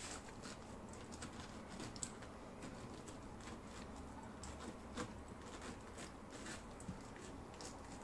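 Knife cutting through a pineapple on a plastic cutting board: faint, irregular small clicks and scrapes, with sharper ticks about two seconds and five seconds in.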